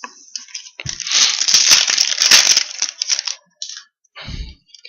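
A foil hockey card pack being torn open and its wrapper crinkled: a dense crackling rustle for about two and a half seconds, then a few short rustles as the cards are handled.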